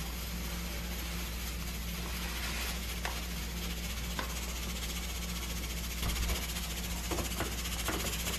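Steady low hum with a light hiss, broken by a few faint knocks of a spoon against a saucepan as instant mashed-potato mix is stirred into hot milk. There are single knocks about three and four seconds in, and a short cluster near the end.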